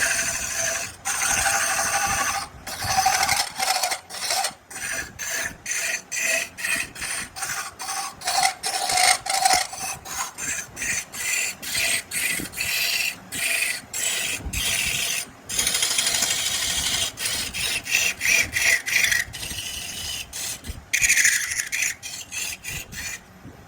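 Wood being scraped or rasped by hand in quick repeated strokes, about two a second, with a few longer strokes later on; the strokes stop shortly before the end.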